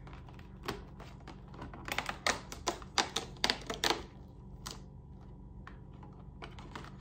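Long fingernails clicking and picking at a cardboard advent calendar, prying open one of its perforated doors. There is a quick run of sharp clicks and taps between about two and four seconds in, with scattered ones before and after.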